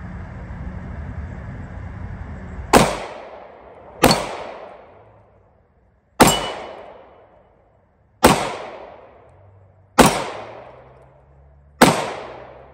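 A 9mm pistol fired six single shots, roughly one every two seconds, each sharp report ringing out and fading over about a second. A steady low rumble runs until the first shot, which comes a little under three seconds in.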